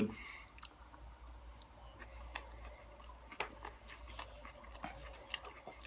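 Faint eating sounds: scattered light clicks of a fork against a foam takeout container, with chewing, over a low steady hum.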